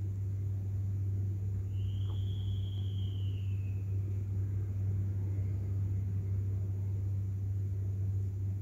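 A steady low hum, with a faint high whistle-like tone that rises and falls for about two seconds, starting about two seconds in.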